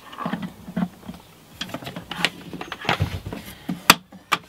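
Irregular clicks, taps and rustling from hands handling a charger cable and a portable power station's plastic casing as the charger lead is plugged into the input socket on the back. Two sharper clicks come about halfway through and near the end, over a faint low hum.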